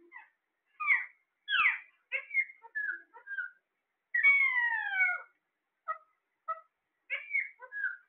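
Caged Alexandrine parakeets calling: a run of short chirps and squawks, with one longer, falling call about four seconds in.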